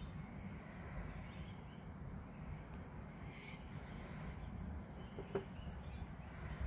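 Faint rustling of fingers handling a fluffy crochet toy, over a low steady background hum, with one soft click about five seconds in.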